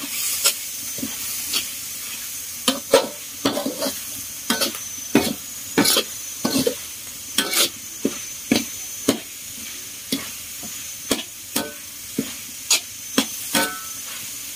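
Metal spatula scraping and knocking against a metal wok as seasoned clam meat is stir-fried, a stroke or two a second at an uneven pace, over a steady sizzle.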